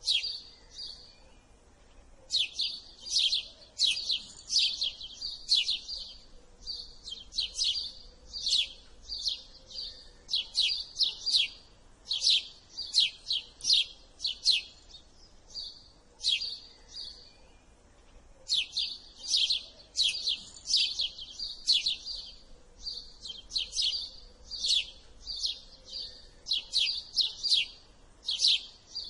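House sparrow chirping: runs of short, high chirps, several a second, broken now and then by pauses of about a second.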